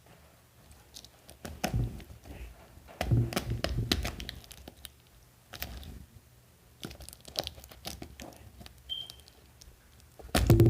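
Crinkling and tearing of the tub's protective seal as it is picked open with fingernails, among irregular taps and knocks of handling the plastic tub.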